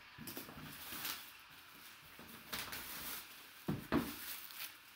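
Hands handling a cardboard trading-card box: rustling and scraping, then two sharp knocks a little before four seconds in as the box is set down on the table.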